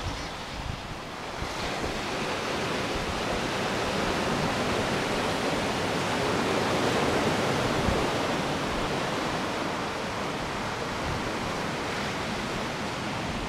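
Surf washing onto a rocky shore: a steady rushing noise that swells to its loudest about halfway through, then eases slightly.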